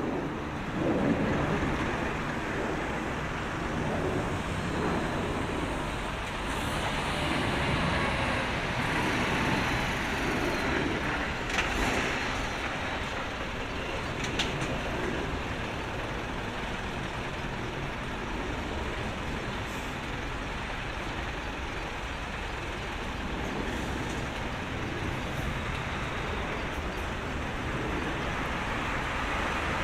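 Jet airliner on final approach: an Airbus A330-200's Rolls-Royce Trent 700 engines at approach power, heard as a steady roar that stays about equally loud while the aircraft closes in.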